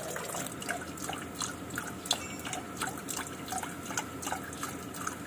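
A thin stream of fuel draining from the opened drain plug of a fuel filter and splashing into a catch container. It is a steady trickle with many small irregular splash ticks.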